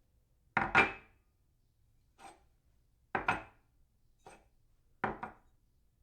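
Ceramic cup set down on a saucer, clinking: three louder clatters, each a quick double knock, about every two seconds, with fainter single clinks between them.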